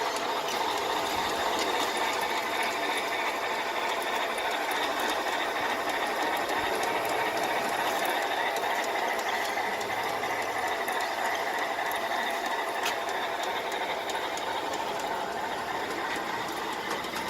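Bachmann G-scale model locomotive running along the track, its motor and gearbox giving a steady whirring grind with faint clicks.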